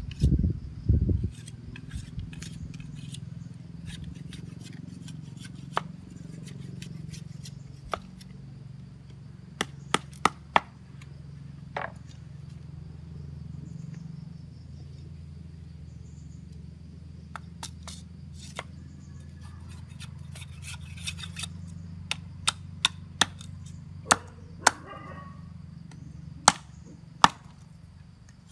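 A small knife cutting and shaving a thin bamboo stick: irregular sharp clicks and taps as the blade bites, with a few louder knocks in the first second. A low steady hum runs underneath.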